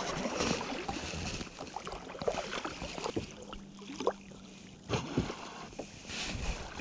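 Sea water lapping and splashing against the hull of a plastic fishing kayak, with scattered small drips and splashes from the raised paddle.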